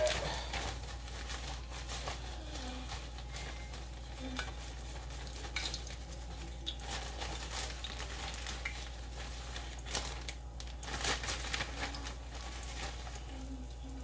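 Floured chicken pieces frying in oil in a pan: a steady sizzle with scattered crackles, the oil not yet fully hot. Louder crackles and clatter come about ten to eleven seconds in.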